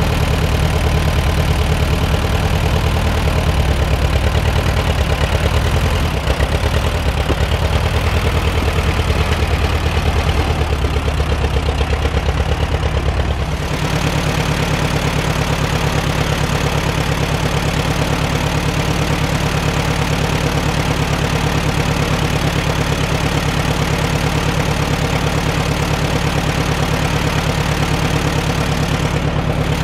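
Case VAC tractor's four-cylinder engine idling steadily. A little under halfway through, the sound changes abruptly from a heavier low rumble to a fast, even pulsing.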